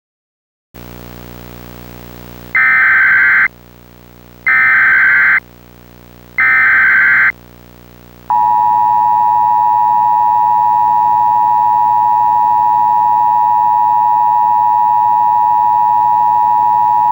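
Emergency Alert System activation. Three roughly one-second bursts of the shrill warbling SAME data header come about two seconds apart over a low buzzing hum. About eight seconds in, the steady two-tone EAS attention signal starts and holds; it announces the spoken alert message that follows.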